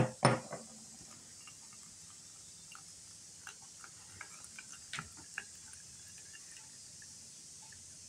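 Two sharp knocks, then faint scattered drips and small glassy clinks as St John's wort oil strains through a cloth-lined strainer into a glass jar.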